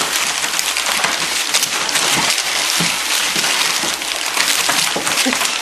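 Several puppies licking and nibbling, a dense crackle of small wet clicks and smacks.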